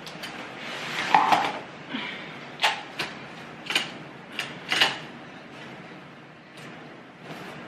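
Baby Trend play yard frame being pulled up by hand: its plastic corner fittings and rails click and knock a handful of times between one and five seconds in, with fabric rustling in between.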